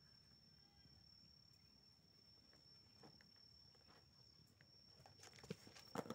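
Faint, steady, high-pitched trill of an insect, likely a cricket, in the background. Near the end come a few sharp knocks and scrapes as the cardboard box with the cat inside tips over onto the concrete.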